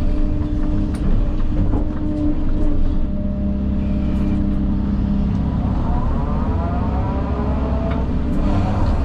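Heavy earthmoving machine's engine running steadily under work, with a whine that rises and falls about six seconds in.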